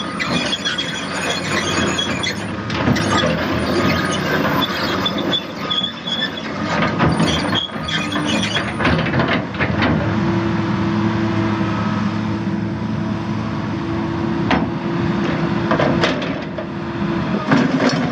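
Komatsu PC220LC crawler excavator on the move, its steel track chains squealing and clanking over the steady running of its six-cylinder diesel engine.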